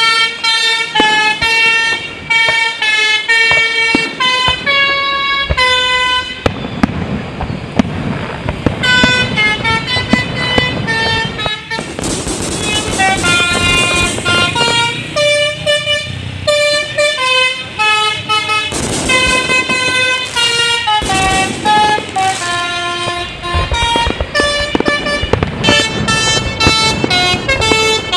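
Basuri musical bus air horn playing a melody of short, stepping horn notes over and over, with brief pauses between phrases.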